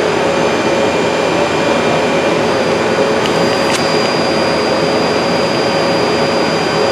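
Steady whirring drone of the running machinery of a Citizen M20 Swiss-type CNC lathe and its magazine bar loader, which is being cycled forward and back. A thin, high, steady whine joins about two and a half seconds in, and there are two light clicks a little after three seconds.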